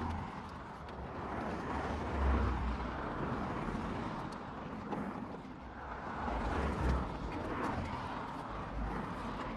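Road traffic passing: a steady outdoor rumble of vehicles that swells about two seconds in and again near seven seconds as cars go by.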